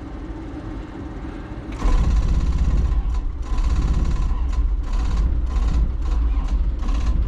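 Mini excavator's diesel engine cranking on its starter in the cold, starting about two seconds in and turning over without catching.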